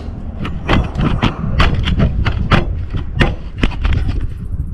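About a dozen sharp knocks and clinks at irregular spacing: loose bolts and metal engine parts being handled while a carburettor adapter plate is fitted.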